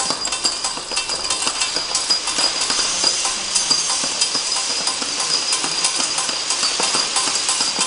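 Automatic ampoule labeling machine running, with rapid, irregular clicking and clinking of small glass ampoules on its roller conveyor over a steady high whine.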